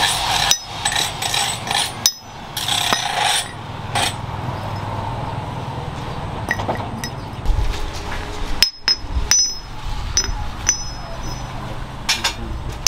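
Rusty steel bearing rings being handled, knocked together and set down, giving a string of sharp metallic clinks, several with a brief high ring, over a low background rumble.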